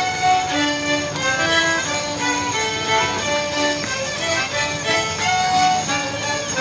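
Fiddles and an accordion playing a lively Border Morris dance tune, with the steady jingle of the dancers' leg bells over the music.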